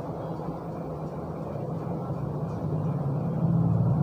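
Steady low background hum or rumble that grows louder over the last second.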